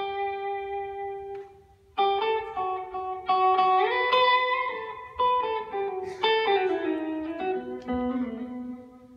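Solo electric guitar playing improvised single notes: a long held note fades away, then about two seconds in a new run of plucked notes begins, slides up in pitch around the middle, steps down in a falling line and ends on a held note that fades out.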